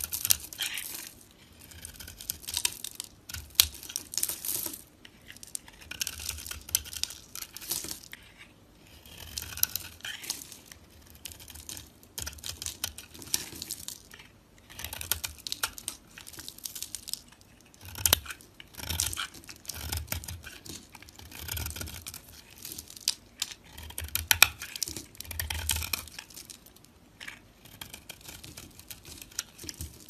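Knife blade cutting and scraping through bars of dry soap in repeated strokes, with crisp crunching as chunks and flakes break away. The strokes come in bursts every second or two, with a sharp crack about eighteen seconds in.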